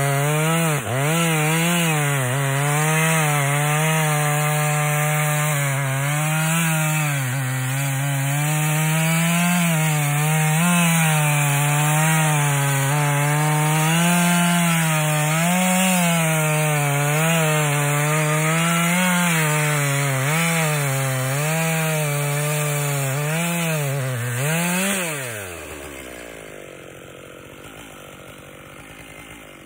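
Two-stroke chainsaw running at full throttle, cutting into a tree, its engine pitch wavering up and down as the chain loads in the wood. About 25 seconds in the engine pitch falls steeply and the sound drops away.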